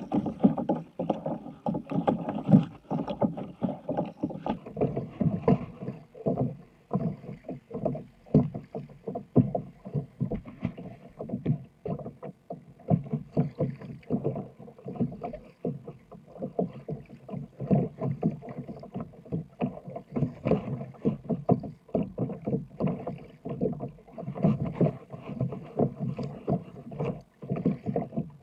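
Sit-on-top kayak being paddled through choppy water: a constant, uneven run of splashes and knocks from the double-bladed paddle and small waves slapping the hull.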